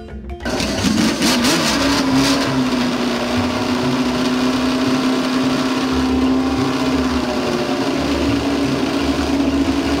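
Car engine sound effect: the engine catches and revs with a brief wavering rattle, then runs at a steady, high-pitched drone.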